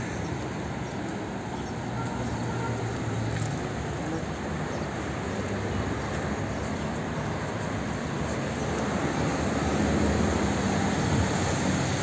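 Steady city street noise of road traffic passing, getting a little louder near the end.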